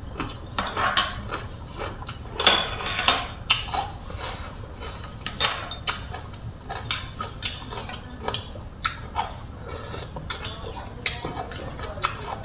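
Metal spoon and fork clinking and scraping on a ceramic plate of rice noodles and water spinach, with chewing sounds in between, in irregular bursts.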